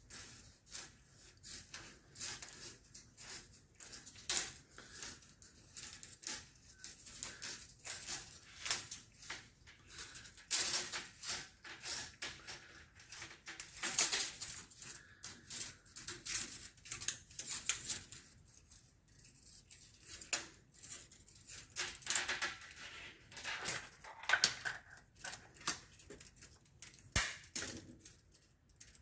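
Irregular clicks, ticks and scrapes of a tape measure being handled, its steel blade pulled out and let back in against a freshly rewound recoil spring.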